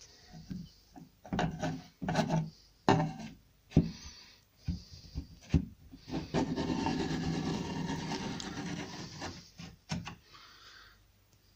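Pencil scribers dragged along masking tape on a wooden cupboard top, marking a scribe line: a steady scratching rub lasting about three seconds, after a few short knocks and handling sounds.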